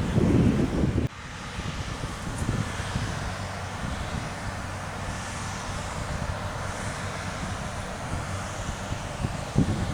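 New Holland CR8.90 combine harvester running steadily in the field, with wind rumbling on the microphone for about the first second and a single brief knock near the end.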